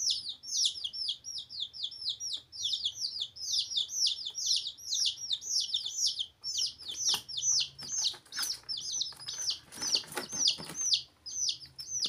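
Baby chicks peeping continuously, a rapid run of high, arching peeps several times a second. About halfway through there are a few seconds of rustling and scuffling noise under the peeping.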